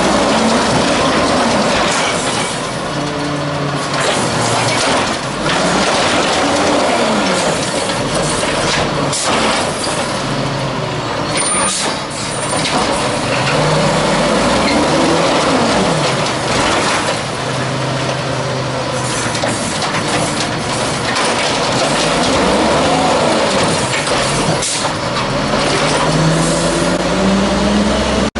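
LNG-powered 1994 WhiteGMC garbage truck working an Amrep rail-arm automated loader: the engine revs up and back down again and again as the hydraulic arm lifts and dumps carts, making a whine that rises and falls in pitch every few seconds. Scattered knocks and clunks come from the arm and carts, and near the end the engine note climbs again as the truck moves off.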